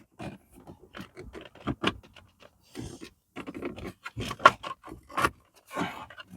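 Hard plastic dashboard trim being worked into place on a Fiat 500: a string of irregular clicks, knocks and short scrapes as the panel is pushed and clipped onto the top cowling.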